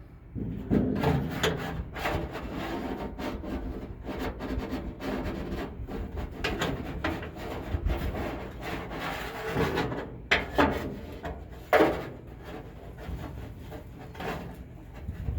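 A screwdriver and a seat-belt anchor plate scraping and rubbing against sheet metal inside a pickup's cab wall as the plate is worked into line with the bolt hole, with a few sharper knocks about ten and twelve seconds in.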